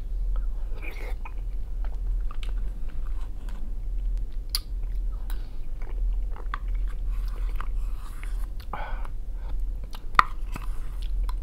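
Close-miked eating sounds: a metal spoon clicking and scraping in a plastic cup of jelly, with wet chewing and mouth sounds. A sharp click comes about ten seconds in, over a steady low hum.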